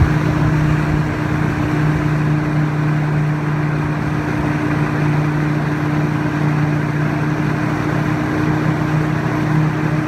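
Tow boat's engine running steadily under way, a constant low hum, over the rushing of the churned wake water.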